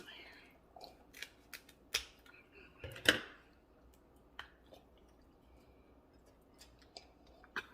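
Scattered sharp clicks and cracks of eating at the table, with the loudest a short crunch about three seconds in, as crab shells and utensils are handled. After about four seconds only a few faint clicks remain.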